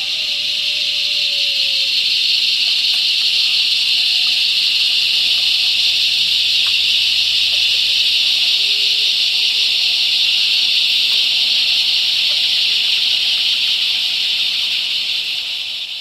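Cicadas calling in a loud, steady, shrill buzz that swells in over the first couple of seconds and fades out near the end.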